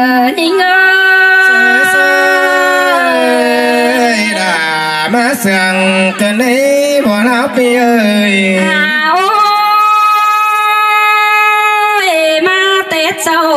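Black Thai khắp folk singing through microphones: a woman holds long, wavering sung notes, and a lower voice, the man's, takes the line in the middle before she returns with another long held note.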